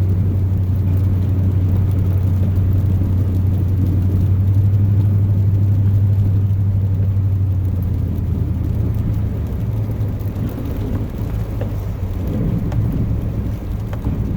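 Chevrolet pickup's 8.1-litre Vortec big-block V8 and road noise heard from inside the cab while driving: a steady low hum that becomes more uneven and a little quieter about eight seconds in.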